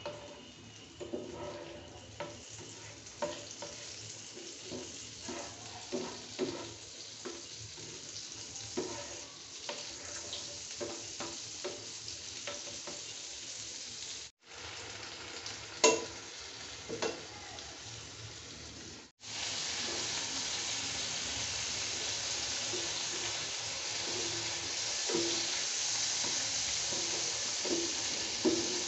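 Butter sizzling as it melts in a frying pan, with a plastic spatula scraping and tapping against the pan, and a sharp knock about 16 seconds in. After a brief break about two-thirds of the way through, the sizzle comes back louder and steadier.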